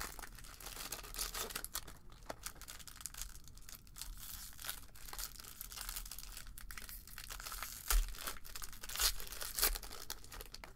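Silver foil trading-card pack being torn open and crinkled by hand: continuous crinkling, with a few louder sharp snaps of the foil near the end.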